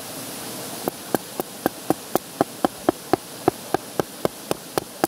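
A machete being struck against a wooden stake to split it into kindling. A fast, even run of sharp knocks, about four a second, starts about a second in, and each knock has a short ring from the blade.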